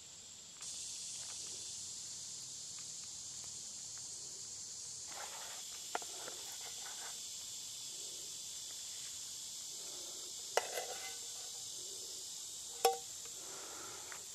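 Steady high-pitched insect chorus, with a few sharp clicks and taps of a metal spatula as fried eggs are lifted and laid onto a tortilla, the loudest tap near the end.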